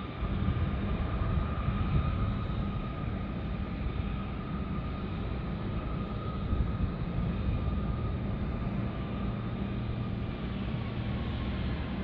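Distant Beech C-99's twin turboprop engines running on the runway: a steady turbine whine over a low rumble.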